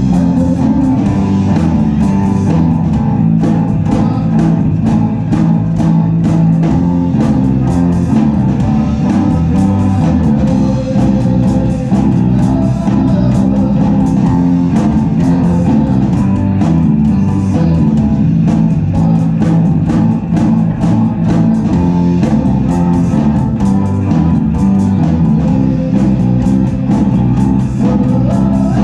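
Live rock band playing loud, steady music, with electric guitar to the fore.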